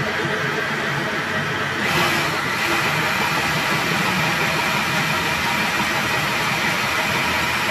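Food processor motor running steadily while it creams butter and sugar in its bowl; the sound turns slightly brighter about two seconds in.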